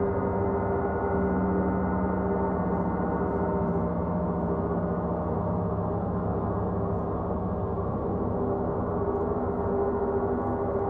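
Large gongs played with mallets in a gong bath: a steady, sustained wash of many overlapping ringing tones with no sharp strikes. A lower tone swells about a second in and fades again near the end.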